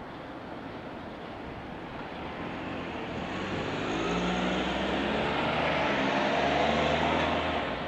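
Iyotetsu 5000-series low-floor tram approaching slowly on a depot track: its electric traction drive whines in several steady tones over the rumble of wheels on rail. It grows louder from about three seconds in and falls away abruptly near the end.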